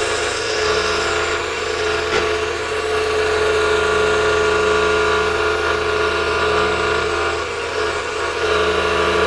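Scroll saw running steadily with a constant hum, its reciprocating blade cutting through a picture-faced wooden workpiece as it is fed by hand. The sound eases briefly about seven and a half seconds in, then picks up again.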